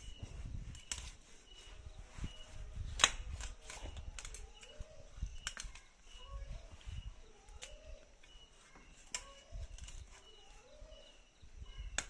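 A cleaver cutting through a large tilapia on a tiled floor: a string of sharp, irregular knocks and cracks of the blade, the loudest about three seconds in. Short animal calls repeat in the background.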